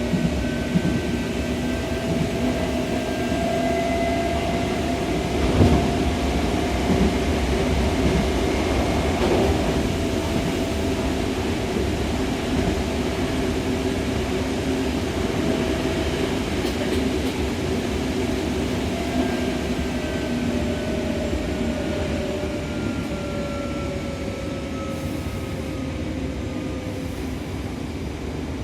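Hankyu Takarazuka Line electric train running between stations, its traction motors whining at a few steady pitches over the rumble of the wheels. In the second half the whine glides down in pitch and the sound eases off as the train slows. There is one sharp knock about five and a half seconds in.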